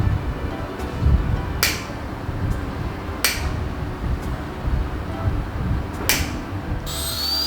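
Sharp clicks of dental instruments, about one every one and a half seconds, over a low rumble. Near the end a high-speed dental drill starts with a high, slightly wavering whine.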